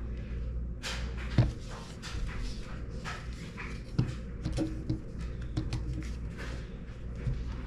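A dog whining in short bursts among scattered knocks and handling sounds. The loudest knocks come about a second and a half in and again about four seconds in.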